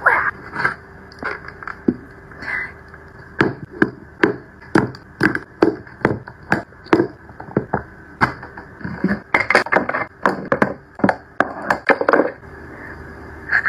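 Hard makeup packaging and the drawers of a makeup trunk clacking and knocking as they are handled: a run of sharp knocks about two a second, getting denser and less even near the end.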